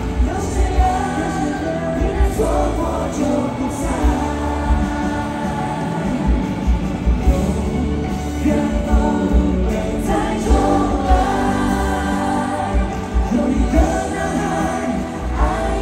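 Live Mandarin pop ballad sung over a band with electric bass, heard from the audience in an arena.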